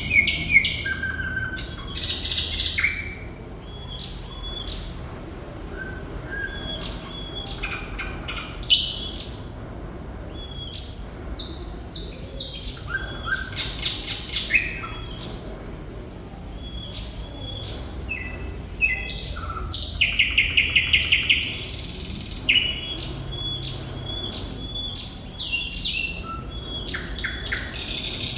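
Thrush nightingale singing: a varied stream of short whistles, clicks and rattling phrases, with a fast run of evenly repeated notes about two-thirds of the way through.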